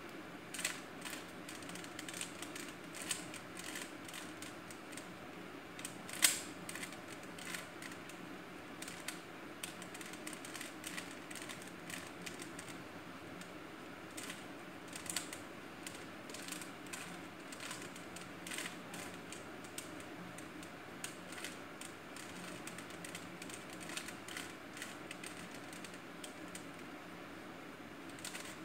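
Faint, irregular clicking and clacking of a plastic 3x3 Rubik's cube as its layers are twisted by hand, a steady scatter of small clicks with one louder click about six seconds in.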